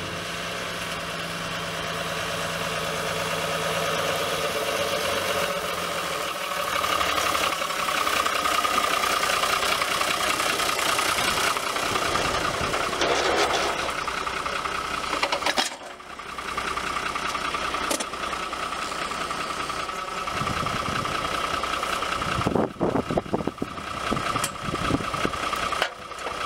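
Fiat DT 110-90 tractor's diesel engine running steadily with a Claas rotary hay rake hitched behind, a high steady whine over it, and a few short knocks near the end.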